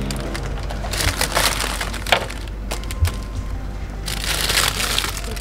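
Plastic ice-cream wrappers crinkling and rustling as packs are handled and pulled from a freezer's wire baskets, with scattered light clicks.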